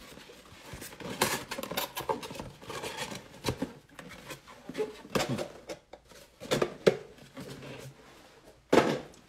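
An empty cardboard box and foil trading-card packs being handled, with irregular rustles, scrapes and light knocks and a louder knock near the end.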